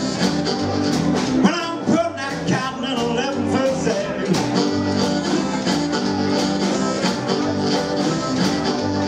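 Live blues band playing: amplified blues harmonica played into a hand-held microphone, with bending, wavering notes, over hollow-body electric guitar, upright double bass and drums keeping a steady beat.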